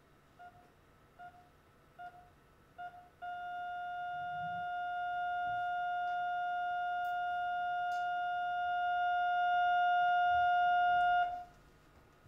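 Heart monitor beeping, four short beeps a little over one a second, then going into a single unbroken flatline tone about three seconds in. The tone grows slightly louder for about eight seconds and then cuts off suddenly: the patient's heart has stopped.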